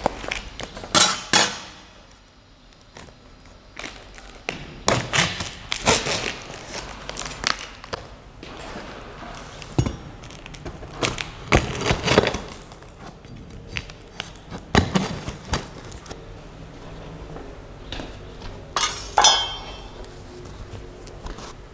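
A large cardboard box being handled on a glass tabletop: irregular knocks, thuds and scrapes as it is shifted about and worked open.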